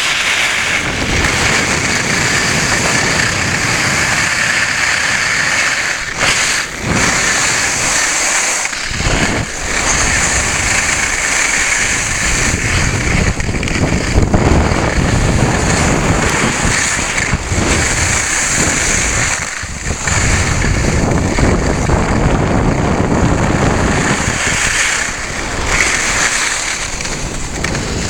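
Wind rushing over the microphone and skis scraping over groomed snow during a downhill run, a steady loud rush with a few brief lulls.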